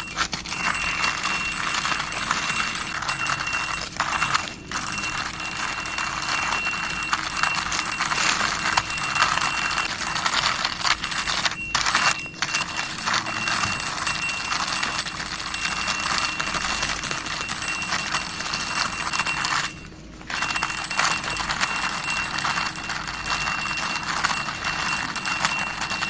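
Cow-shaped toy car pushed along by hand: a continuous rattling whir with a high ringing note, broken by brief pauses about four, twelve and twenty seconds in.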